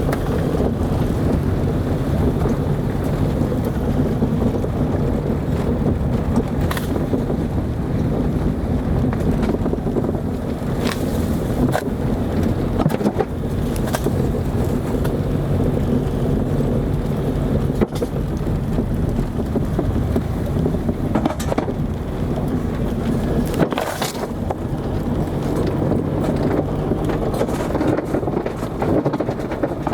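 Car driving on a dirt road: a steady engine and tyre rumble, with sharp knocks here and there.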